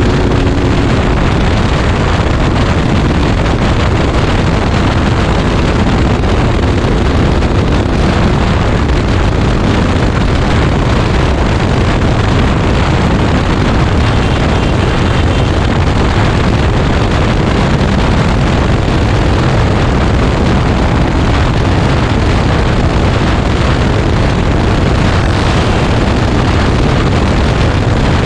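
A KTM RC 200 motorcycle being ridden at speed: steady, heavy wind rushing over the microphone with the engine beneath it.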